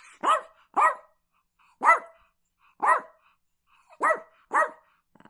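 A dog barking: six short barks, roughly a second apart, some coming in quick pairs.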